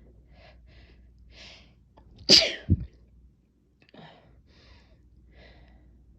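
A person takes a few short breaths, then lets out one loud sneeze about two seconds in, followed by quieter breathing. The sneeze is brought on by chhinkni, a sneezing powder, which gives an intense, strong tickle.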